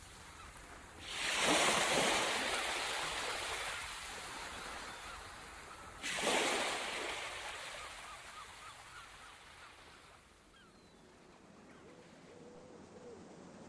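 Two waves breaking on a shore about five seconds apart, each rush of surf rising quickly and fading slowly.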